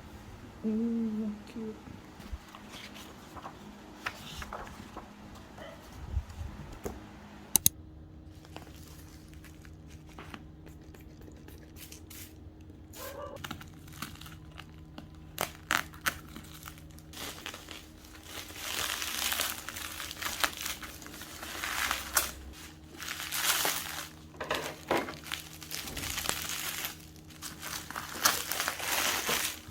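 Packaging being unwrapped by hand: plastic wrapping crinkling and tearing in repeated bursts, getting denser and louder in the second half.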